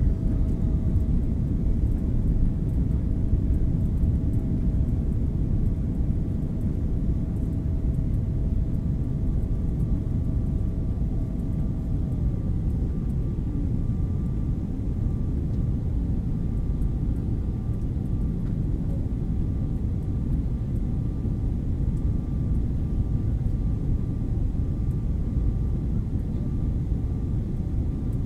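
Cabin noise inside a Boeing 777-200ER airliner on approach to landing: a steady low rush of jet engines and airflow. A faint steady whine runs through it, dropping away about twelve seconds in as a higher one takes over.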